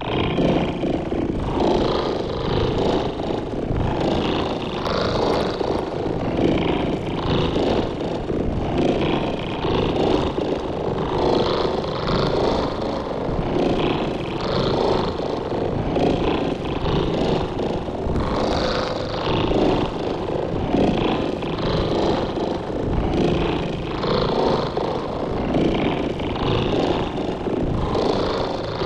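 Futuristic designed sound effect: a dense, continuous engine-like rumble that starts suddenly, with a brighter hiss swelling and fading every second or two.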